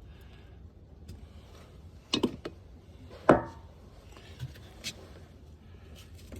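Handling knocks and short squeaks from hands working a hose onto a plastic barbed fitting in a hot tub jet manifold. There are two louder sharp sounds a couple of seconds in, each with a brief falling squeak, and a few fainter clicks later.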